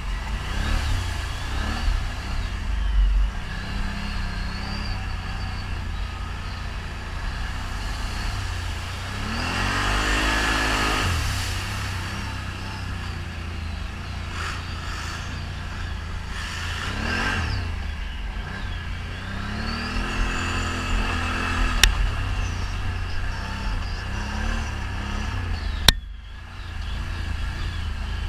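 ATV engines running over a steady low rumble, revving up and down in pitch several times. Two sharp clicks come in the second half.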